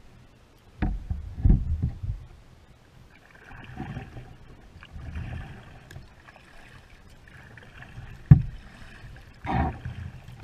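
Hollow thumps and knocks on a Pelican plastic kayak, about five of them, the sharpest and loudest a little past the middle, with quieter handling and water noise between them.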